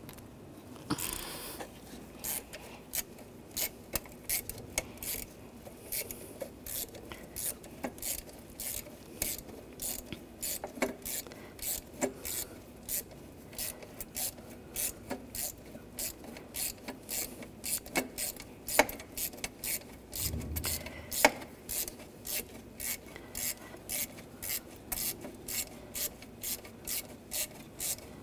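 Ratchet wrench clicking in steady back-and-forth strokes, about two to three a second, as a nut is worked off from under the exhaust manifold. A couple of sharper metal knocks come past the middle.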